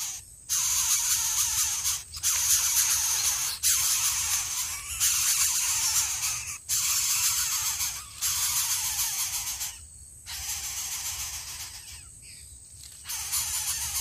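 Coucal nestling hissing in a run of repeated harsh bursts, each lasting a second or two with short breaks for breath, like a snake's hiss; the last few bursts are weaker.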